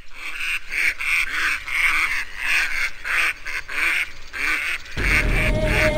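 Ducks quacking in a rapid series of short calls, about three a second. Music comes in near the end.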